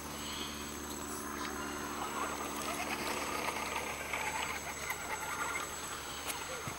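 Radio-controlled scale crawler's small electric motor and gearing whirring at low speed as it climbs, with its tyres scrabbling on loose soil. The steady low whir fades out about three seconds in.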